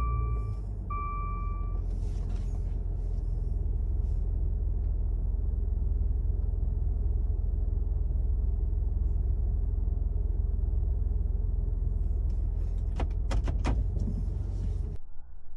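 Inside a Maserati's cabin, a steady low rumble of the running car, with two short electronic beeps right at the start as the gear selector is moved. A few sharp clicks come about 13 seconds in, and the rumble cuts off just before the end.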